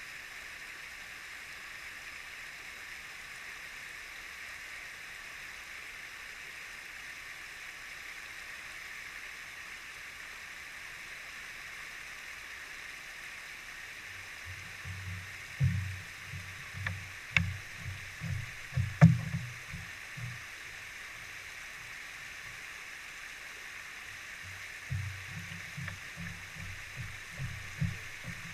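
Steady rush of running water, heard muffled through a GoPro's waterproof case. Clusters of low, muffled thumps with a couple of sharp clicks come about halfway through and again near the end.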